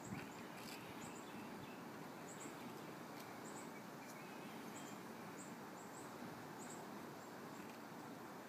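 Steady outdoor background noise with faint, short high chirps repeating about once a second, and a few light clicks.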